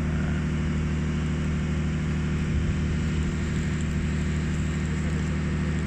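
Boat engine running at a steady speed, a constant low drone with the rush of water and wind over it.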